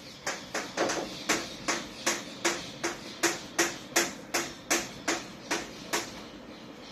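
Chalk on a chalkboard: a quick run of about sixteen short tapping strokes, one every 0.4 s or so, as a string of zeros is written. The strokes stop about six seconds in.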